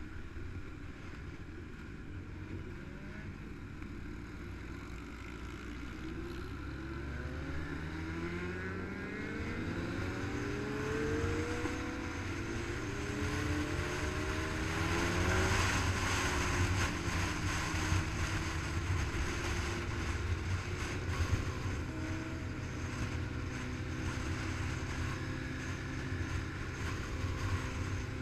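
Motorcycle engines running on the road with wind rushing over the microphone. From about a quarter of the way in, the engine pitch rises several times as the bikes accelerate up through the gears, getting louder toward the middle, then settles into a steady cruise.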